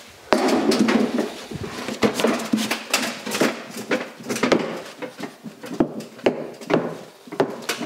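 A flat board and a bent sheet-steel rocker panel knocking and scraping against each other and the concrete floor as a man kneels on the board to squeeze the panel's bend tighter. Irregular knocks and scrapes, starting abruptly just after the beginning.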